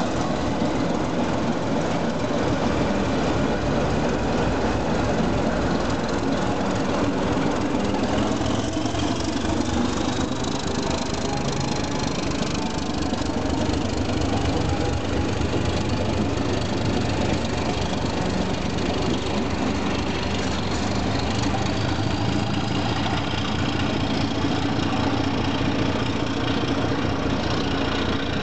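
Diesel engine of a ČD class 749 'Bardotka' locomotive running under power. It is a steady, heavy engine sound, with a whine that rises in pitch about a third of the way in.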